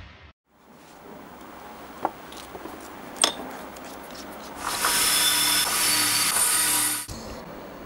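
A steel rod scrapes and taps at the rusted handle of a cast-iron sad iron, with two sharp clicks. From about five seconds in, the rusty iron grinds loudly against a spinning abrasive wheel, and the grinding cuts off suddenly about seven seconds in.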